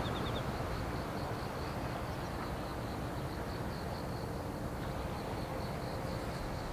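Outdoor ambience: a steady low rumbling hiss, with a faint high chirp repeating about four times a second throughout.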